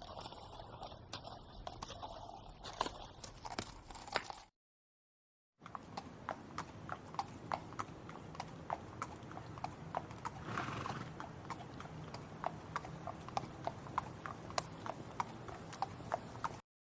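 Shod horse's hooves clip-clopping on a hard surface: sharp, fairly regular knocks a few times a second, broken by a second-long gap of silence a little over four seconds in.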